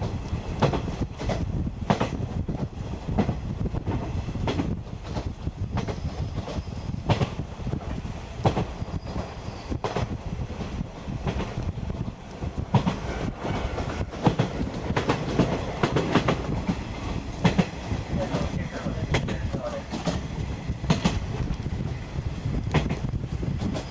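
Running noise heard inside a 50-series locomotive-hauled passenger coach: a steady low rumble of wheels on rail, broken by frequent, irregular clacks as the wheels cross rail joints.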